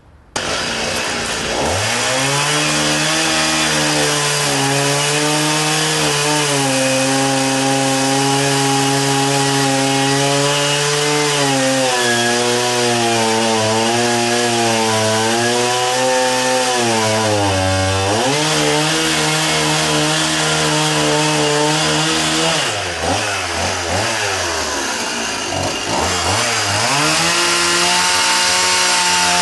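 Chainsaw cutting into dry wood, starting abruptly and running at high revs, its pitch sagging and recovering as the chain bites. It drops back twice in the last third and revs up again near the end.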